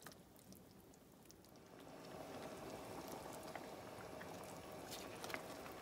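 Chicken in a cream sauce bubbling faintly in a stainless steel frying pan over a high gas flame, building from about two seconds in as the cream heats, with a few light clicks of a wooden spoon stirring it.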